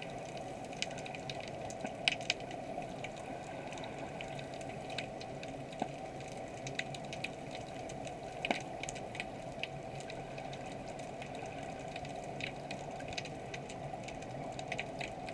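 Underwater ambience picked up through a camera's waterproof housing: a steady hum with scattered sharp clicks and crackles, a few a second at irregular intervals.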